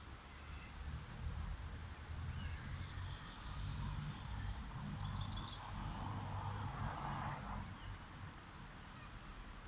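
Light road traffic: cars moving slowly through a roundabout, a low steady rumble with one car's tyre noise swelling and fading about two thirds of the way through. A few faint bird chirps sound over it.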